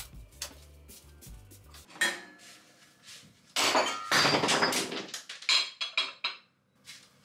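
A light-blue ceramic cup dropped and breaking: a clatter about two seconds in, then a loud crash of shattering crockery lasting about a second and a half, followed by a few sharp clinks.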